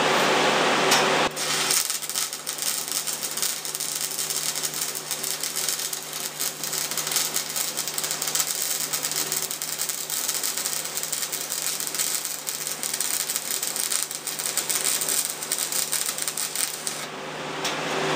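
Stick (SMAW) welding arc crackling as a bead is run, starting suddenly about a second in and cutting off near the end. An electric fan hums steadily underneath.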